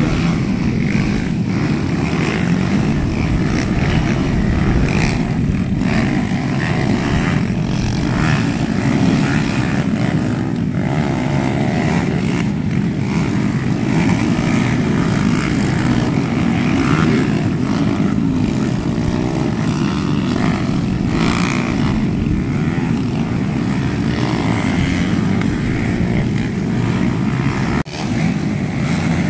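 Several cubcross racing motorcycles running on a dirt track, their engines overlapping in a steady, continuous drone. The sound dips out briefly near the end.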